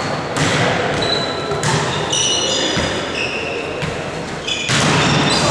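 Volleyball play in a reverberant sports hall: several sharp hits of the ball, short high squeaks in between, over a steady background of players' voices.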